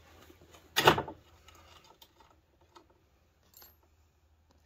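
A single sharp metallic clank about a second in as the steel mounting frame of an ATV spreader is handled on the ATV's rear rack, followed by a few faint clicks and taps.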